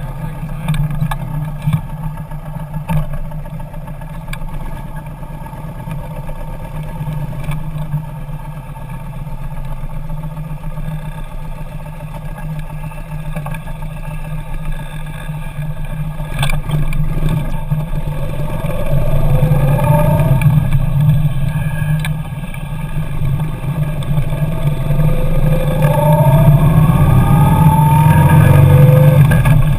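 Kawasaki Nomad motorcycle's V-twin engine running under way, steady at first, then rising in pitch and growing louder through the second half as it accelerates. A few brief clicks stand out about halfway through.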